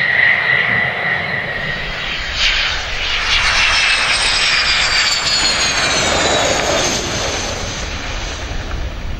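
Twin jet engines of a Su-25 attack jet at takeoff power on the runway: a steady high whine, then from about two seconds in a broad roar whose whistling tone falls in pitch as the jet passes.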